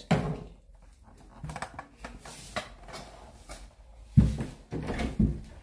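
Handling noise from a phone camera being moved and propped in place: rubbing and small knocks, with a heavier thump about four seconds in and a lighter one a second later.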